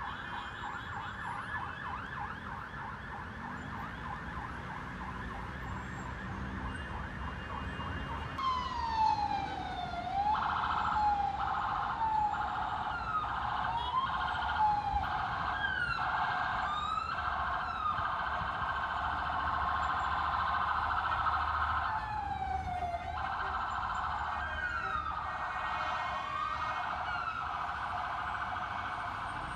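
Emergency vehicle sirens in city traffic: a fast warbling yelp at first, then from about eight seconds in several sirens overlapping in slow rising and falling wails, over a low rumble of traffic.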